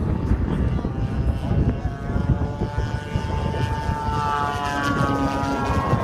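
A model airplane's motor and propeller whining as it flies past, the pitch falling in the second half, over heavy wind rumble on the microphone.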